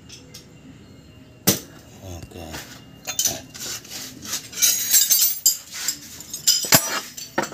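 Metal hand tools and engine parts clinking and knocking: a single sharp click about a second and a half in, then a busy run of quick metallic clinks and knocks from about three seconds on.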